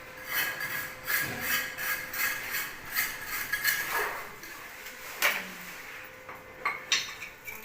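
Carpentry work on wood: a rapid run of tool strokes, about three a second for some four seconds, then a few separate sharp knocks near the end.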